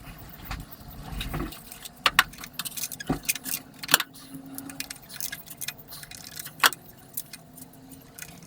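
Metal hand tools and engine parts clinking and knocking against each other in irregular sharp clicks, with a few louder clanks about two, four and six and a half seconds in.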